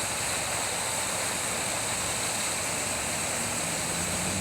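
Water gushing steadily from a broken fire hydrant: a continuous rushing hiss of spray.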